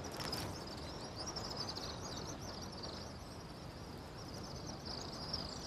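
Outdoor ambience with a steady high-pitched chirping chorus.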